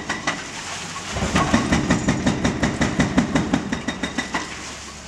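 Excavator breaking up a concrete bridge deck: a dense run of sharp knocks and cracks of concrete being broken, with the machine's low engine rumble coming in about a second in.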